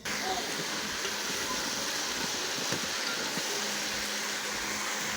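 Steady hissing noise that starts suddenly right at the beginning.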